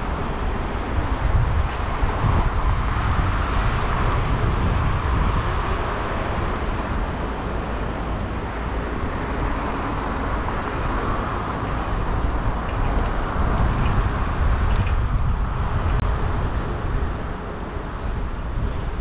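Steady road traffic noise from passing cars, heard while riding a bicycle, with a low rumble of wind on the microphone.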